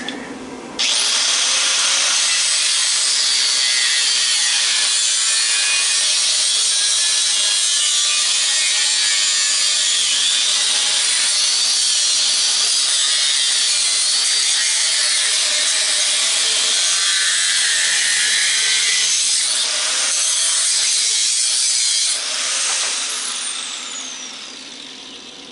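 An angle grinder starts about a second in and cuts steadily through a transformer's metal windings. It is switched off near the end and spins down with a falling whine.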